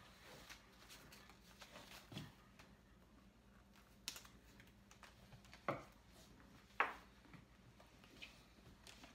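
Metal clips on the detachable strap of a Coach Field Tote clicking and tapping as the strap is fastened to the bag: four sharp clicks spread over a few seconds, the last two loudest, with faint handling rustle between them.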